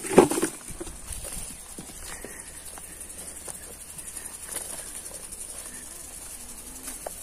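Insects chirring steadily, a high, finely pulsing hiss, with a brief louder sound right at the start and faint scattered rustles and knocks.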